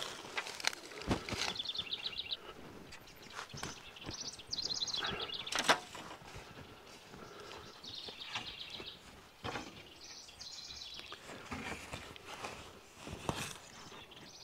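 A songbird singing a short, high, trilled phrase over and over, about once every three seconds. A few sharp wooden knocks and clacks come in between as long, thin split-wood strips are handled, the loudest about six seconds in.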